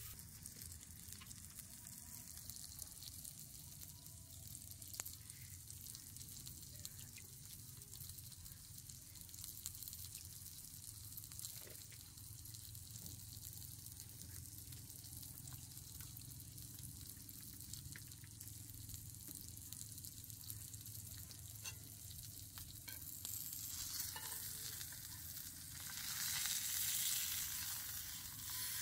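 Chicken breast frying in oil in a cast iron pan over a charcoal fire: a steady sizzle with a few light clicks, growing louder near the end as the chicken is turned with tongs.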